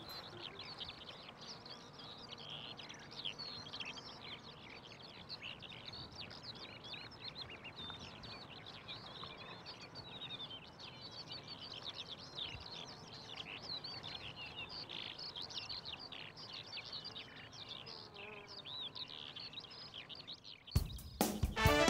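Many small birds chirping and twittering at once, a dense outdoor chorus of short, varied calls. Music cuts in abruptly near the end.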